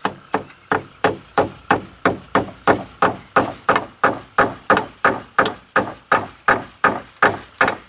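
A hammer striking steadily, about three blows a second, tapping a staple in to fasten chicken wire onto a wooden post, each blow ringing briefly.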